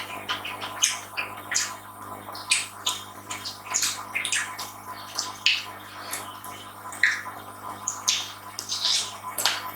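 Close-miked eating: irregular wet chewing, smacking and mouth clicks, several a second.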